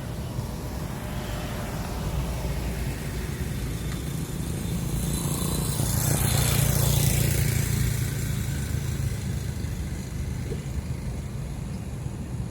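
A motor vehicle passing close by over a steady low engine rumble, growing louder to a peak about halfway through and then fading away.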